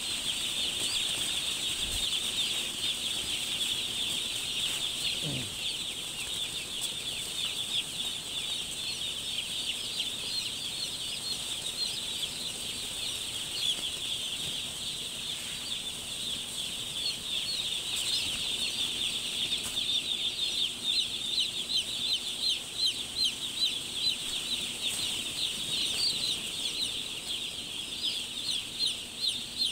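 Thousands of day-old chicks peeping together: a dense, continuous chorus of high, short, falling cheeps, with single peeps standing out louder in the second half. A thin steady high tone sits above the chorus.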